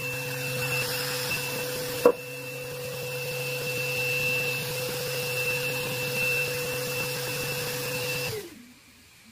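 Random orbital sander running on an epoxy resin tabletop: a steady motor whine and hum with the pad working the surface. There is one sharp knock about two seconds in. Near the end the sander is switched off and winds down.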